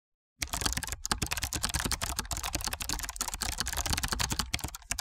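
Computer keyboard typing: a fast, uneven run of key clicks that starts about half a second in.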